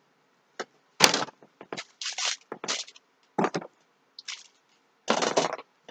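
Handling and rummaging sounds while a desk is searched for a small dropped diamond-painting drill: a series of short scrapes and rustles, with a sharp click about a second in.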